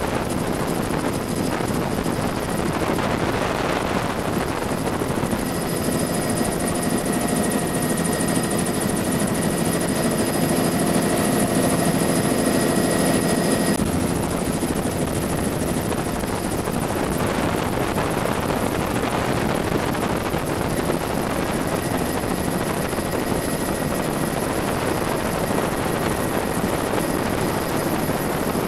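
Bell 206 JetRanger helicopter in flight, heard from inside with the doors off: steady, loud rotor and single-turbine engine noise mixed with wind rush. A few steady tones join in about six seconds in and cut off suddenly about halfway through.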